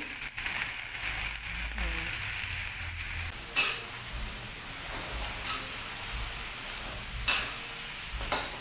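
Chopped mustard greens, cabbage and carrot sizzling in a wok while a spatula stirs and turns them, with a steady hiss and three sharp clacks of the spatula against the pan.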